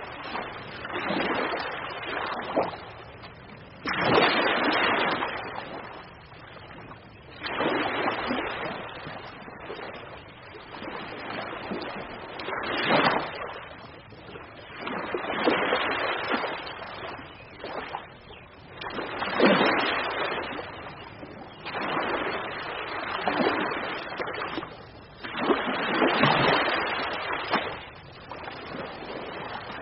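Ocean waves breaking and washing ashore, the surf swelling and falling away every three to four seconds.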